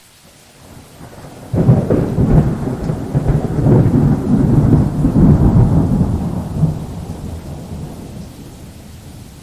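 Close thunder from a lightning strike: a sudden sharp crack about a second and a half in, then a long low rumble for several seconds that slowly dies away. Steady rain hisses underneath.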